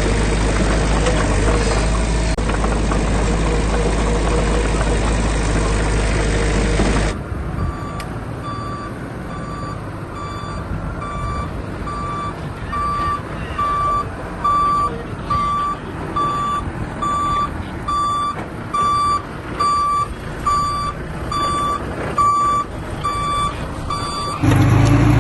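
A heavy machine's diesel engine running steadily. About seven seconds in, after a cut, a reversing alarm beeps evenly about one and a half times a second over quieter engine noise.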